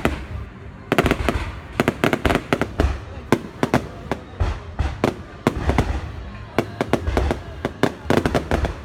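Fireworks display: shells bursting in rapid, irregular volleys of sharp bangs and crackles with deep booms underneath, easing off briefly about half a second in and again around the middle.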